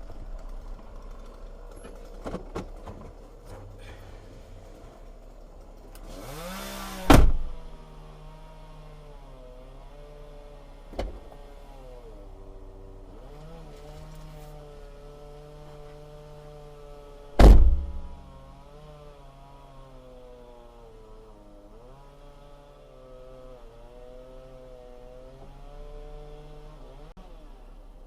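A small engine running, its pitch drifting up and down, with two loud sharp thuds about ten seconds apart and a lighter knock between them.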